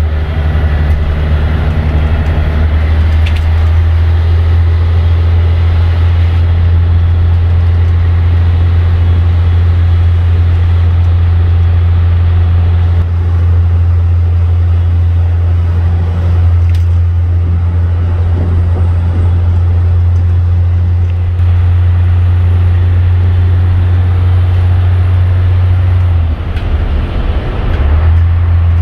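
1996 Scania L113's 11-litre six-cylinder diesel engine heard from inside the bus cabin under way: a quite loud, steady low drone. It drops off briefly near the end, then picks up again.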